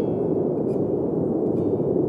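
Ambient soundscape music in a lull between phrases: a steady soft wash under faint, fading notes of plucked strings.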